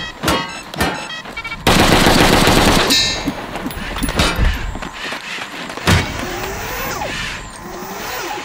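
Gunfire: a few separate sharp shots, then a dense burst of rapid fire lasting about a second and a half, and one more sharp shot about six seconds in.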